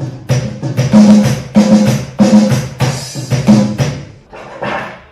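Electronic drum kit played through its sound module: a run of heavy drum hits, about two or three strong strokes a second, getting weaker and sparser near the end.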